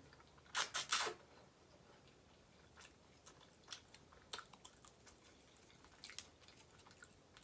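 Close-miked mouth sounds of a person eating ramen noodles: a quick cluster of loud mouth noises about half a second in as the noodles go in, then faint scattered chewing clicks.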